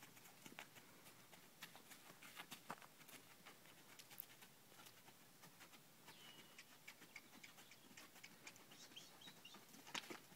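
Faint, irregular hoofbeats of a horse moving on sandy dirt footing, with a short bird chirp about six seconds in and a few more near the end.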